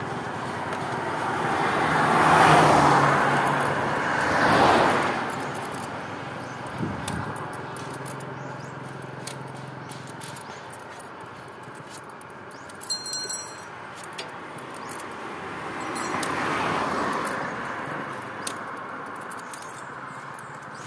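Motor vehicles passing on a road: two swell and fade in the first five seconds, and another passes about sixteen seconds in. A few short, sharp clinks about thirteen seconds in.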